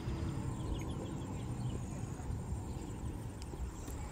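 Open-air ambience: a steady low rumble, with faint bird chirps about a second in.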